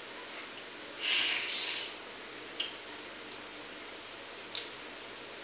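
A loud slurp lasting about a second, as pakhala (fermented rice water) is drunk from a steel bowl, followed by two short clicks, over a steady low hiss.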